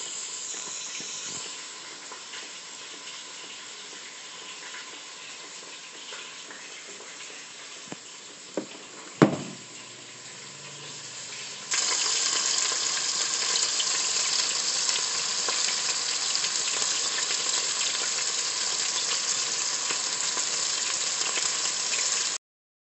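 Pork tenderloin pieces searing in hot oil: a steady, loud sizzle that starts abruptly about halfway through. Before it, a quieter steady hiss with a couple of knocks and one sharp thump.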